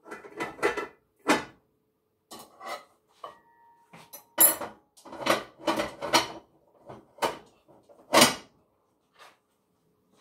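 Cooking pots and their metal lids clattering: a string of sharp knocks and clanks, some loud, as lids are set on the pots.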